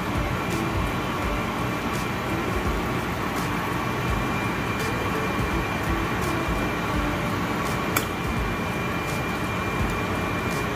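A stainless steel saucepan of chicken broth simmering on the stove, a steady rushing noise with a faint steady hum under it. A metal spoon clicks against the pan about eight seconds in.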